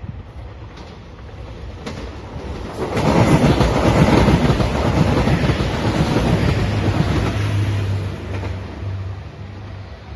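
JR 2700 series diesel limited express train passing at speed: rushing wheel and running noise builds about three seconds in, stays loud for about five seconds, then fades, with a low steady hum as it goes by.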